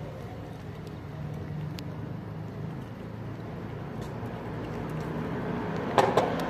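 Cat crunching dry kibble close up, a few faint crunches and then a louder cluster of crunches near the end, over a steady low rumble of vehicle traffic.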